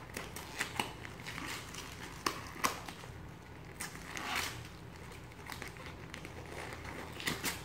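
Gift-wrapping paper being pulled apart and torn open by hand, crinkling in scattered sharp crackles, with a longer rustle about four seconds in and a quick cluster of crackles near the end.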